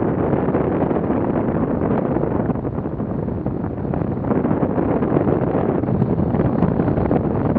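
Steady rush of wind from a hang glider in flight, buffeting the glider-mounted microphone.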